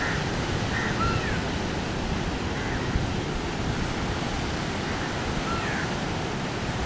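Steady rushing noise of sea surf and wind, with a few faint, short chirps scattered through it.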